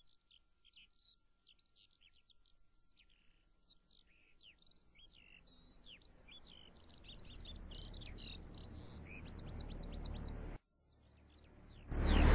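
Birds chirping in a dense, continuous run of quick high chirps that sweep downward. Partway through, a low rumble swells up and then cuts off suddenly, and a much louder sound comes in at the very end.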